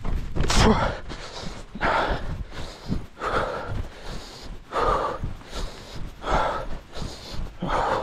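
A person breathing hard and rhythmically, one loud, noisy breath about every one and a half seconds, six in all.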